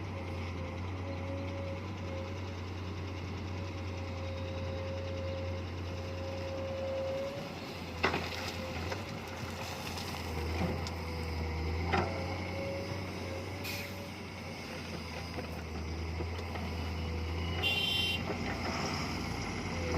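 Komatsu PC210 excavator's diesel engine running steadily, with a few sharp knocks partway through and a short high-pitched beep near the end.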